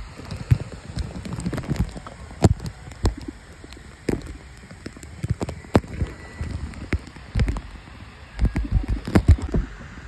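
Water splashing and dripping around a small tour boat on a river, with irregular sharp clicks, knocks and low thumps that cluster and are loudest near the end.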